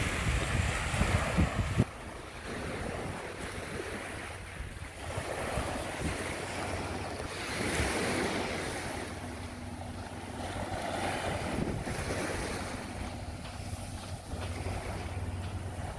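Sea waves washing onto a beach, the surf swelling and falling back every few seconds. Wind buffets the microphone with heavy rumbling gusts for the first two seconds.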